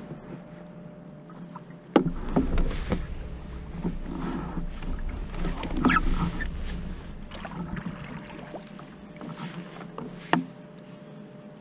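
Kayak paddle strokes dipping and splashing in river water, with a few sharp knocks, the loudest about two seconds in and another near the end. Wind rumbles on the microphone from about two seconds in until past halfway.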